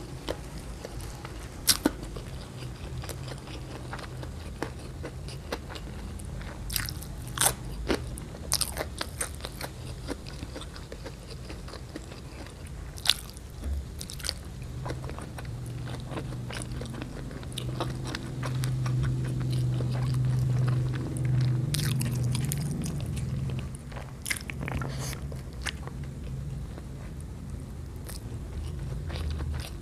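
Close-miked eating sounds of a person chewing spicy stir-fried shrimp with rice: wet chewing with sharp crunchy clicks scattered through. A low steady hum swells through the middle of it.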